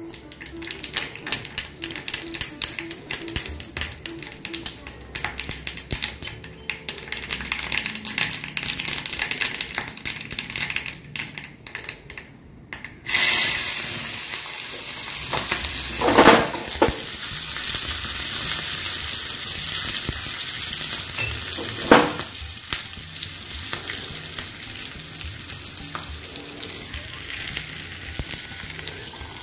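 Mustard seeds crackling and popping in hot oil in a small tempering pan: a rapid run of pops. About 13 seconds in, green chillies go into the oil and a loud, steady sizzle takes over, with two sharper flare-ups, then slowly dies down.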